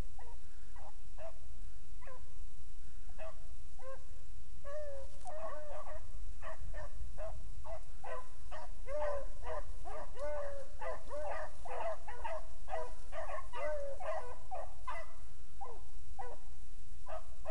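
A pack of beagles baying on a rabbit's trail. The calls overlap and pile up into a full chorus in the middle as the hounds close in, then thin out near the end, over a steady low rumble.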